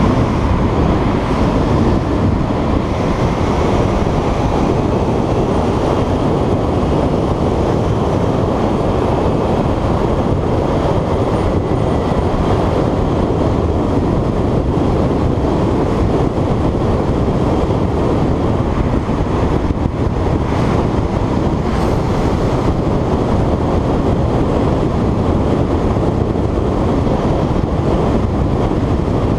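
Steady rumble of a Kawasaki Ninja 300's parallel-twin engine and wind noise while the motorcycle cruises through a road tunnel, the sound echoing off the tunnel walls.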